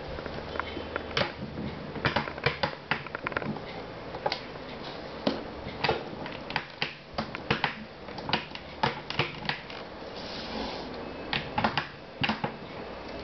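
Irregular sharp clicks and small rattles of plastic LEGO Technic parts being handled, with a brief rustle a little after the middle.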